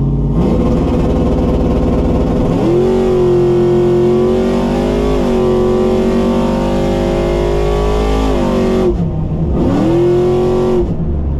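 Chevrolet Trailblazer SS's 6.0-litre V8 at wide-open throttle on a drag-strip run, heard from inside the cabin. The revs build, then jump up sharply, and the engine pulls hard with one brief dip in pitch. About nine seconds in it cuts off abruptly, revs up once more for about a second and drops away.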